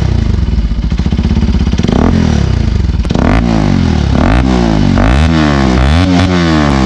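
Bajaj Pulsar RS 200's single-cylinder engine running loud through an Akrapovič double-barrel aftermarket exhaust. It idles with a fast, even putter, then from about three seconds in it is revved in several quick throttle blips, the pitch rising and falling each time.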